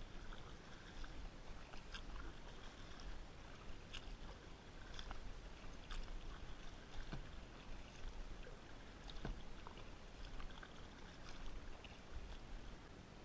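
Kayak paddle dipping into calm water, with small splashes and drips every second or two over a faint, steady low rumble.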